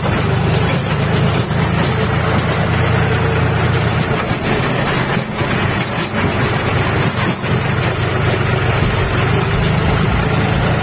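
John Deere tractor's diesel engine running steadily as the tractor drives along a rough dirt road, heard close up from the driver's seat, with a few knocks from the tractor jolting over the ruts.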